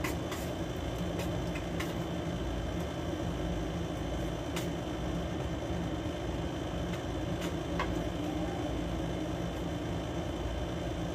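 Steady machine hum filling a small room, with a few faint clicks of eating utensils against plates.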